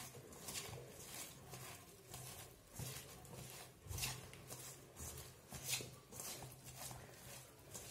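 Hand tossing raw cauliflower florets coated with dry masala and flours in a stainless steel bowl: faint rustling strokes of florets against each other and the bowl, repeating about once or twice a second.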